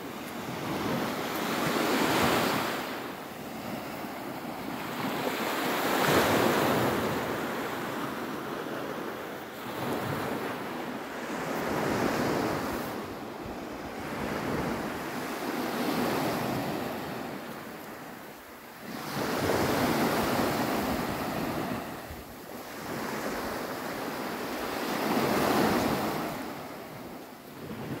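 Small sea waves breaking and washing up onto a sandy beach, the rush of surf swelling and falling away every few seconds.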